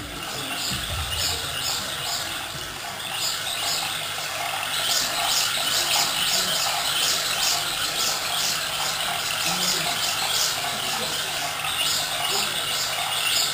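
High-pitched squealing chirps, repeating about twice a second through the middle of the stretch, over a steady low hum.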